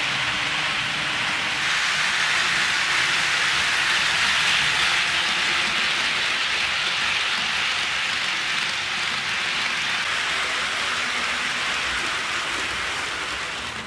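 HO scale model trains running on the track: a steady rolling hiss of the wheels on the rails and the running gear.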